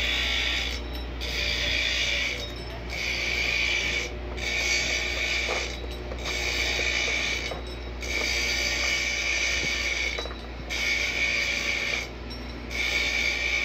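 Workshop machinery running: a repeating mechanical whirr, each about a second long with short breaks between, over a steady low hum.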